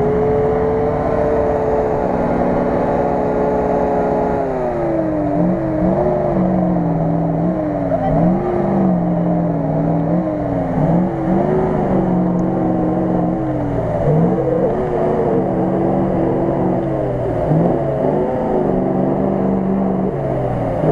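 GAZ-66 truck's engine revving under load in deep mud. It holds high revs for the first few seconds, then drops and climbs again repeatedly as the throttle is worked.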